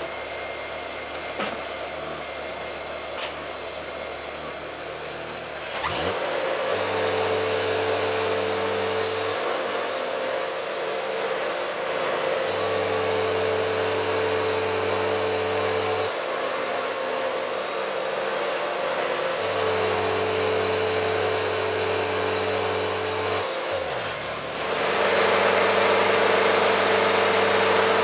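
Wood-Mizer LT40 portable band sawmill running. About six seconds in it gets louder as the band blade saws through a log: a steady sawing noise over the machine's drone, with a low hum that cuts in and out every few seconds.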